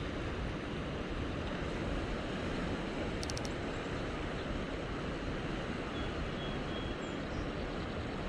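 Steady rushing noise of fast-moving river water, with wind on the microphone. A brief faint clicking about three seconds in.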